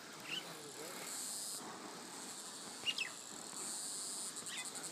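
Steady high-pitched insect drone that grows louder and pulses rapidly near the end, with three short bird chirps, the loudest about three seconds in.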